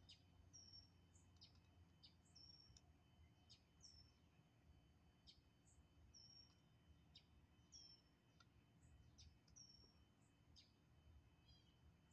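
Faint birdsong: small birds chirping, with short high notes and quick down-slurred chips repeating a couple of times a second.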